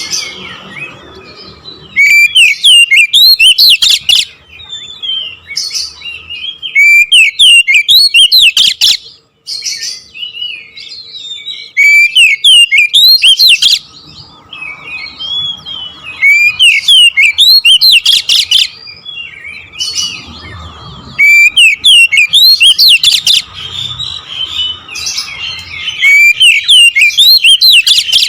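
Oriental magpie-robin (kacer) singing. Loud bursts of rapid, varied whistled phrases come about every five seconds, with quieter twittering in between.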